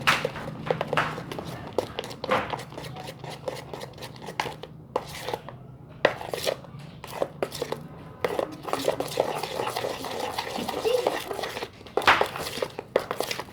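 A utensil clicking and scraping against a small dish as glue and detergent-water activator are stirred into slime, with a short pause about five seconds in.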